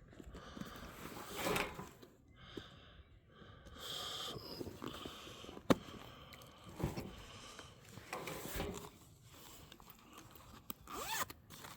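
Drone accessories and paperwork handled by hand during unpacking: irregular scraping and rustling, with one sharp click a little before the middle.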